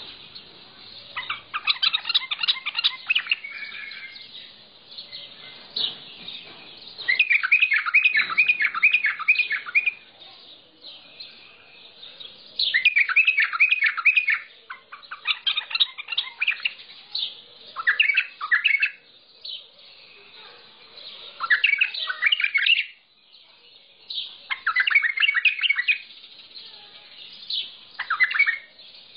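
Mandalawi bulbul singing: short bursts of rapid, chattering song phrases, repeated every few seconds with brief pauses between them.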